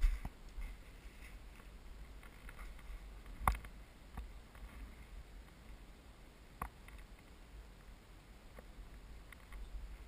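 Mostly quiet, with a low rumble and a few scattered sharp knocks and clicks; the loudest comes about three and a half seconds in. The knocking picks up near the end as the handheld camera starts moving.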